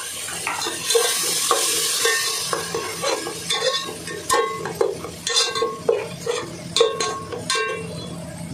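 Onion and ginger-garlic paste frying in hot oil, sizzling, while a spatula stirs and scrapes the pan in repeated strokes, about two a second.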